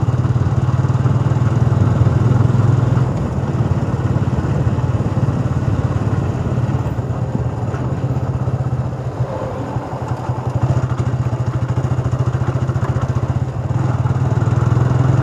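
Motorcycle engine running steadily while the bike rides slowly along a dirt track, a continuous low drone that eases off a little in the middle before picking up again near the end.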